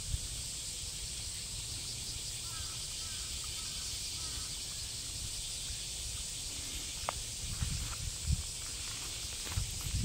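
Steady high-pitched drone of insects in summer heat, with low wind rumble on the microphone and a few faint short chirps a few seconds in.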